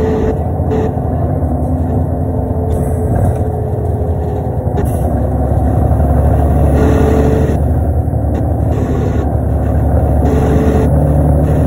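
Inside a 2005 New Flyer D35LF diesel transit bus under way: its Cummins ISL engine and Allison automatic transmission run steadily, getting louder about six seconds in.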